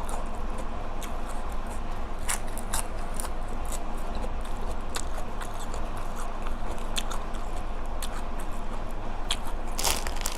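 Close-miked chewing of spicy red ant egg salad, with irregular wet mouth clicks and smacks.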